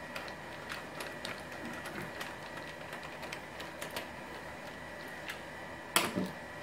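Screwdriver turning a small screw into the rim of a Ubiquiti LiteBeam AC Gen2 reflector dish, making a run of light, irregular clicks. Near the end comes a sharper double knock as the screwdriver is set down on the desk.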